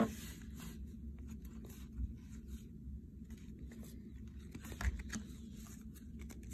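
Baseball cards being handled and flipped through, faint paper-card rustling and soft clicks as the cards slide against each other, with a small knock about two seconds in and another near five seconds.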